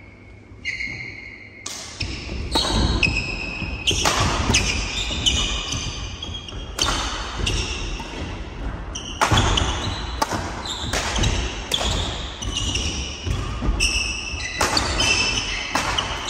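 Badminton doubles rally: repeated sharp racket strikes on the shuttlecock, starting about two seconds in, mixed with high squeaks of shoes on the wooden court floor, echoing in a large hall.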